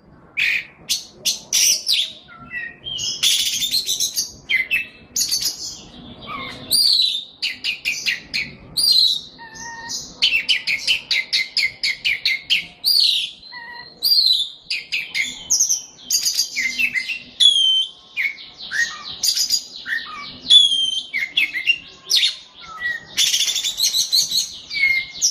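A songbird singing a long, fast, varied song of high chirps, whistled slurs and trills, with hardly a pause.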